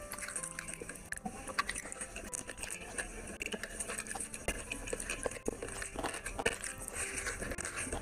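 Close-up eating sounds: a person chewing mouthfuls of rice and curry with many small wet smacks and clicks, along with fingers squishing and mixing rice on a plate.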